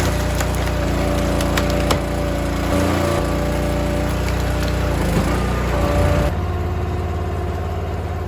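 Engine of a wood-processing machine running steadily under load, with a few sharp cracks of wood in the first two seconds. The sound turns duller about six seconds in.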